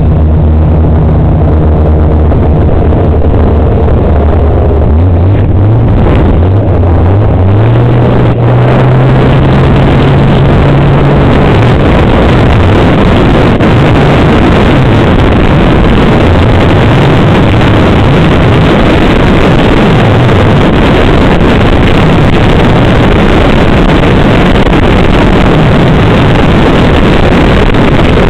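Snowmobile engine running at low speed, then speeding up about five seconds in with a rising pitch. From about twelve seconds in it is at speed, and the engine note is lost in a steady, loud rush of noise.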